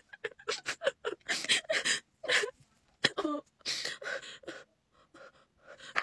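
A young woman crying: short gasping sobs, sniffs and broken whimpers that come in quick, uneven bursts with brief gaps between them.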